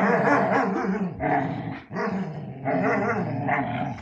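Airedale terriers growling over a rope toy in a tug of war: play growls in long rough stretches, broken by brief pauses.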